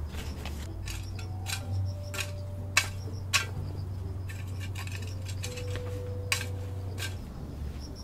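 Garden hoe working stony soil, its metal blade giving several sharp clinks as it strikes stones; the three loudest come near the middle and late on.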